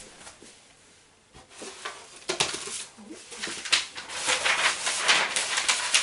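Rustling and crinkling from materials being handled by hand, faint at first and growing into a busy, clicky rustle about two seconds in.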